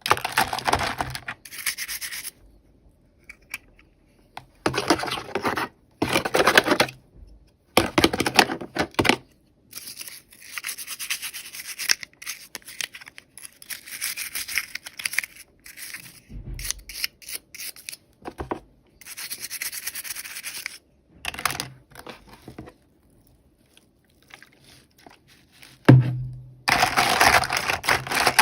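Toy packaging being unwrapped by hand: rubbing and rustling in repeated bursts of one to two seconds, with short pauses and a few light clicks between them.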